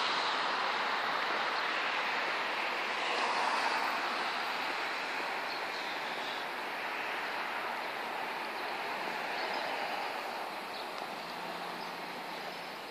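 Steady hiss of street traffic, slowly fading away.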